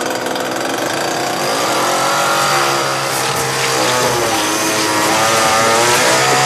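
A gasoline chainsaw running at speed and being revved, its pitch rising and falling over a steady low engine note.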